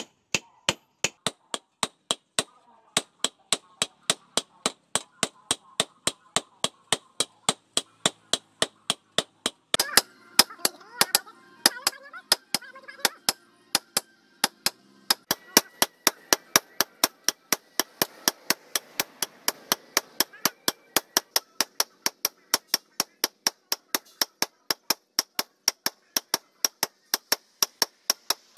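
Hand hammers striking a red-hot leaf-spring blade on a steel post anvil during forging: a steady run of sharp blows, about two to three a second, coming a little quicker in the second half.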